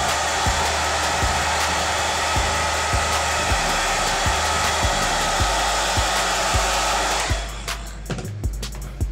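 Hand-held hair dryer blowing steadily on a wig's lace hairline, a constant rushing noise that switches off about seven seconds in. Background music with a steady beat runs underneath.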